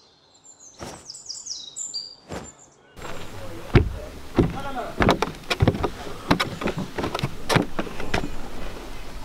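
A few short bird chirps, each falling in pitch, over a quiet background. About three seconds in, louder outdoor ambience begins, with bare feet stepping on wooden deck boards in irregular knocks and thuds.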